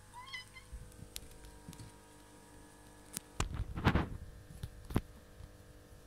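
A domestic cat watching birds through a window gives a short, rising chirp just after the start, the little call cats make at birds. Around the middle come a louder rustling scuffle and a few sharp knocks.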